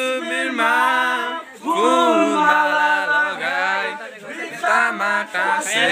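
Group of young men singing a Deusi song unaccompanied, the Nepali Tihar festival carol. Several voices sing together in a lively chant.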